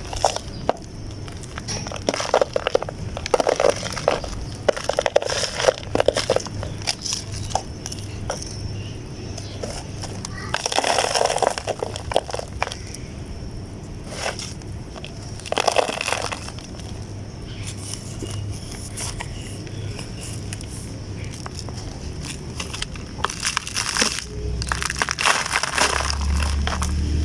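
Damp chunks being crushed and crumbling apart in several separate bursts of soft crackling crunches.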